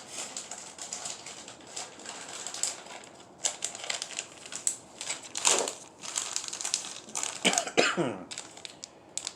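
Plastic bait packaging being handled: irregular crinkling, rustling and clicking as packs are moved and opened.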